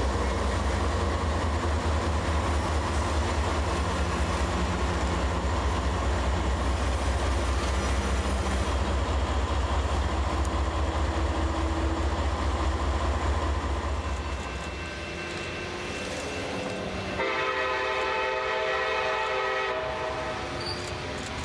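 Double-stack container train passing close by: a heavy steady rumble with rapid wheel clatter, easing off about two-thirds of the way through. Near the end a diesel locomotive's multi-note horn sounds one long blast of about three seconds.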